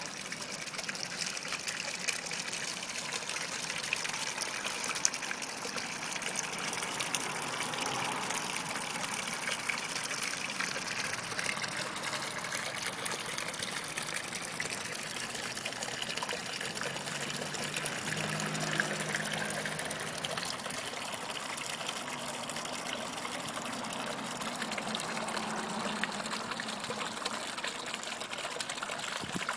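Small garden pond fountain, its water falling from a spout and splashing steadily into the pond.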